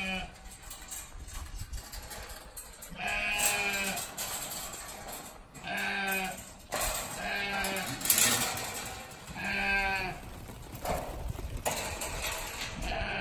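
A flock of lambs bleating, a long call every three seconds or so. A short rush of noise comes about eight seconds in.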